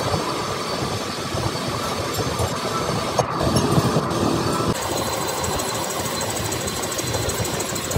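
Metal lathe running while a single-point cutting tool faces the end of a steel truck bogie shaft, giving a steady machining noise.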